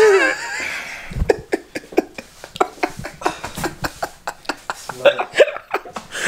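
A man laughing hard: a loud, wavering cry at the start, then a run of short, breathy bursts of laughter.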